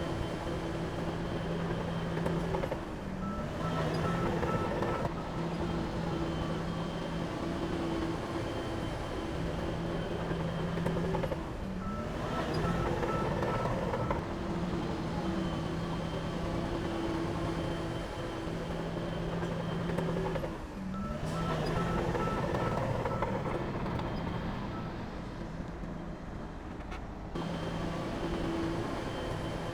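Heavy machinery engine running steadily, with a reversing alarm beeping in short runs a few times.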